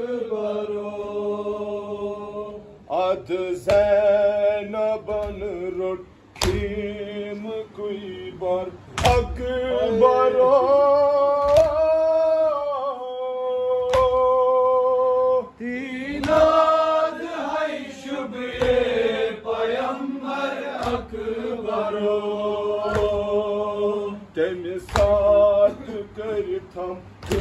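Male voices chanting a Kashmiri noha, a Shia mourning lament, in long held and sliding notes. A sharp slap comes about every two and a half seconds, chest-beating (matam) in time with the chant.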